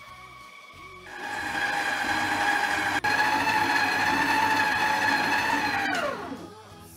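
Electric stand mixer's motor whining as its flat beater creams butter and sugar in a steel bowl. It gets much louder about a second in, then, after a click near the end, the whine falls in pitch as the motor is switched off and spins down.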